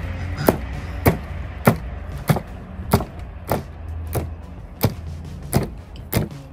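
Background music with a steady beat: a sharp hit about every 0.6 s over a low bass line.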